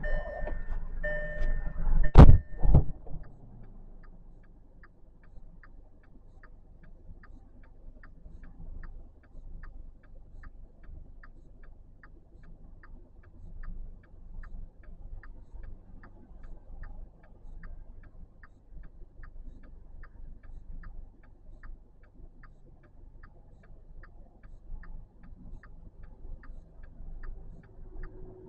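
A car door thuds shut about two seconds in. Then the car's indicator flasher ticks steadily, about twice a second, inside the quiet cabin over a low rumble.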